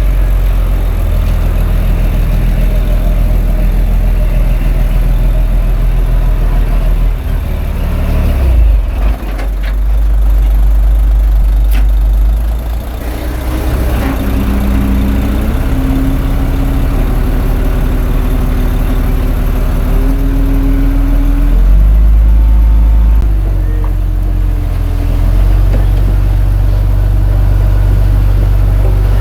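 Komatsu D21A bulldozer's diesel engine running steadily with its speed shifting up and down as it works, with a higher whine that changes pitch in steps through the middle.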